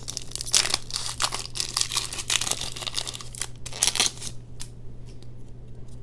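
Foil wrapper of a Pokémon trading-card booster pack being torn open and crinkled by hand, a dense crackle for about four seconds that then dies down to faint rustling.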